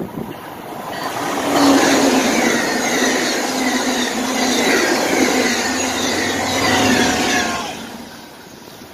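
Amtrak passenger train passing close by at speed: the locomotive and a string of single-level passenger cars rush past with a loud wheel-on-rail roar that swells about a second in and dies away near the end.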